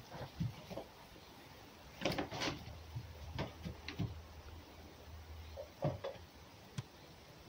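A red fox playing with a rubber toy on its pen floor: scattered soft knocks and scuffling rustles, with a short cluster about two seconds in and a few single sharper taps later.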